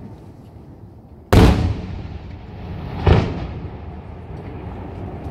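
Two aerial fireworks shells bursting, the first about a second and a half in and the second about three seconds in, each a sharp bang trailing into a low rumbling echo; the first is the louder.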